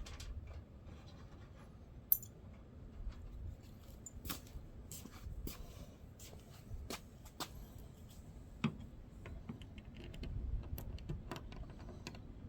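Scattered light clicks, taps and scrapes of small hardware and tools being handled, with a sharper click about two seconds in and a knock near nine seconds.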